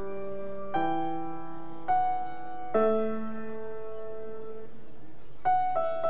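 Grand piano played solo: slow chords struck about once a second, the third one held and left to ring for a couple of seconds, then a few new notes near the end.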